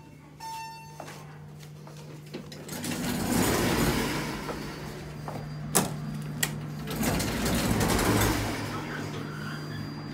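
Elevator arrival chime sounding once, then the elevator doors sliding open about three seconds in, two sharp clicks, and the doors sliding shut about seven seconds in, over a steady low hum.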